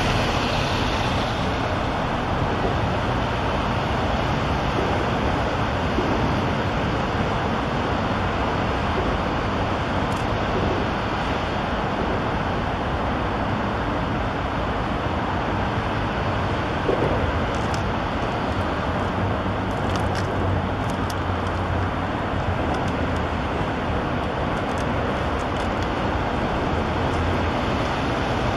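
Steady traffic noise from highway traffic on the interchange, with a low hum joining in for several seconds past the middle.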